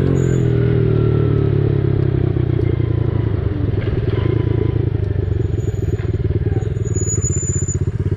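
Dirt bike engine running at low revs, steady at first, then breaking into a rapid, evenly pulsing beat from about two seconds in.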